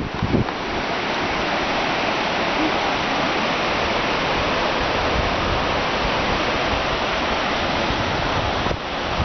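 Steady rushing of a rocky mountain river in the gorge below, with a few low wind buffets on the microphone at the start.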